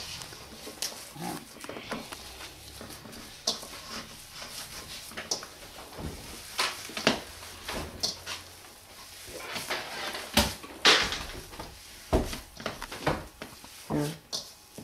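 Hands kneading and squeezing a soft blended cheese filling in a bowl: irregular wet squishes with occasional light knocks against the bowl.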